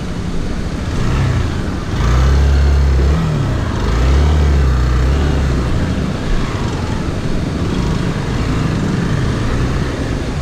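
Motorcycle engine running as the bike rides along a muddy road, opening up louder about two seconds in and again about four seconds in, its pitch rising and falling with the throttle.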